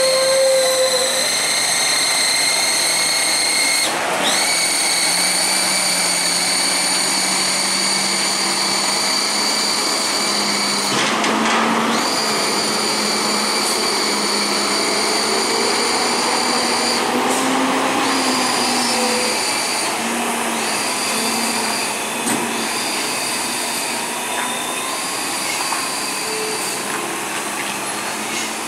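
Heavy trucks' diesel engines running slowly through a steep hairpin, with a steady high-pitched whine over the engine sound that rises about four seconds in and breaks off briefly several times in the second half.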